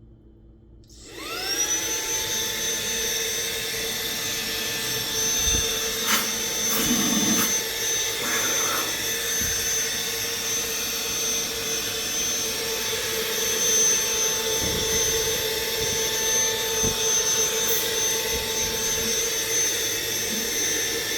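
HL-107 cordless handheld car vacuum, a 7.4-volt, 80-watt unit, switched on about a second in: its motor spins up to a steady high whine and runs on. A few clicks and knocks come partway through.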